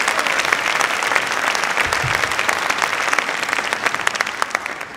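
Audience applauding with steady, dense clapping that begins to die away near the end.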